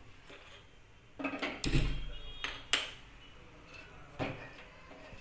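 Metal kitchen utensils knocking and clinking: a burst of knocks about a second and a half in, the loudest with a dull thud, then two sharp clinks near three seconds in and one more about four seconds in.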